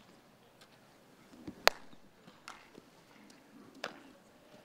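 A sharp crack of a bat hitting a baseball about a second and a half in, followed by fainter knocks and, near the end, the smack of the ball into a fielder's leather glove.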